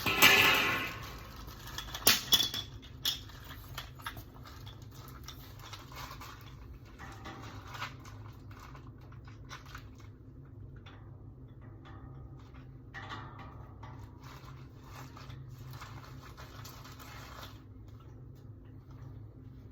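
Items being handled: a few sharp clicks and clatters in the first three seconds, then bursts of rustling now and then, over a steady low hum.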